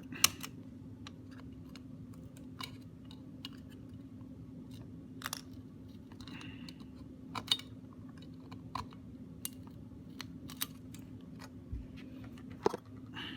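Scattered small clicks and taps of a prying tool working at the clips of a part inside a 5th-generation iPod, over a steady faint hum.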